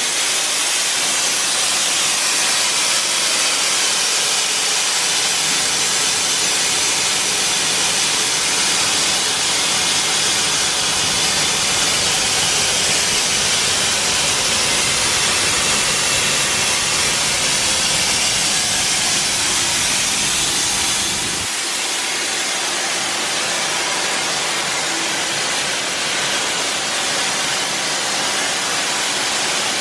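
Steady, loud mechanical hiss of running factory machinery. About two-thirds of the way through, the deeper rumble under it drops away and the hiss carries on.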